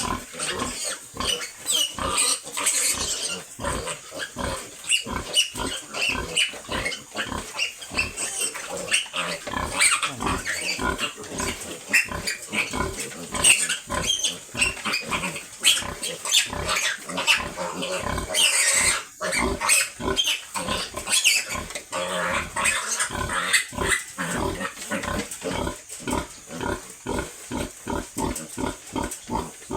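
A litter of piglets squealing and grunting around their sow, with a few sharp squeals. Near the end the grunts settle into a quick, even rhythm of about two to three a second.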